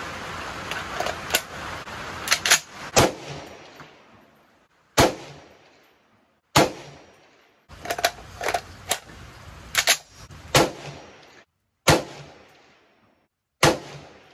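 Springfield M1A semi-automatic rifle in 7.62x51/.308 firing single shots, one to two seconds apart, each a sharp report with a short echo. A few shorter, sharper clacks in the first few seconds come as a magazine is handled at the rifle.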